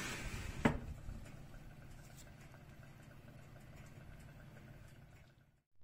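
Electric oven running with a steady low hum, its fan and element working on a tray of simit. Near the start there is a short rustle and a sharp click as the tray is set in place.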